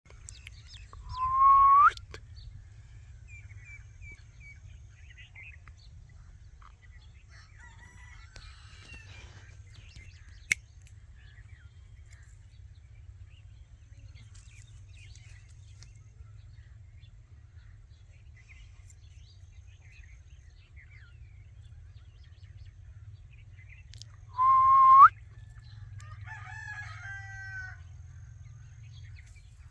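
Parrot calling: two loud, short rising calls about twenty seconds apart, with fainter chirps in between and a softer call just after the second one. A single sharp click comes about ten seconds in.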